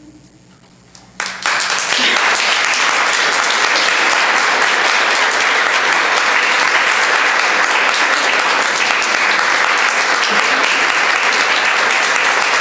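A congregation applauding: after a brief hush, clapping starts suddenly about a second in and keeps up steadily.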